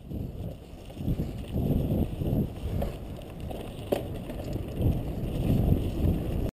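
Wind buffeting a handlebar-mounted action-camera microphone, over the uneven rumble of a bicycle rolling fast along a bumpy snow-covered dirt trail, with a sharp knock about four seconds in. The sound cuts off suddenly at the end.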